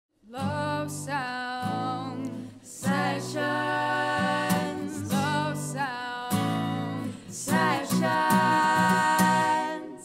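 Singing in several held phrases with vibrato over sustained keyboard chords, fading out at the end.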